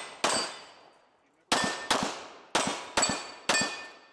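A CZ pistol firing about seven shots, one shot, then a pause of about a second, then a quick string of six, with steel targets ringing after several of the hits.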